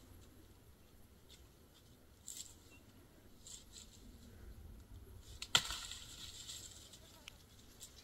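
Twigs snapping and leaves rustling as tree branches are pulled by hand, with scattered small snaps and one sharp crack about five and a half seconds in, followed by a burst of rustling.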